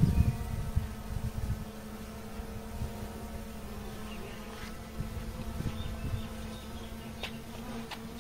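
A steady low buzzing hum that holds one pitch throughout, with a low rumble in the first second and a half that dies away, and a few faint clicks near the end.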